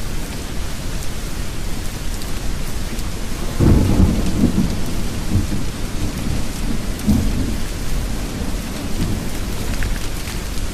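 Steady rain with a roll of thunder that breaks in suddenly about a third of the way through, then rumbles low in several swells for about four seconds before sinking back under the rain.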